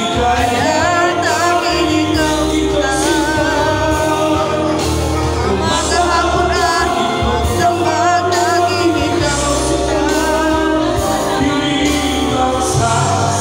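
A singer singing a slow song into a microphone with vibrato over amplified backing music with a steady bass line.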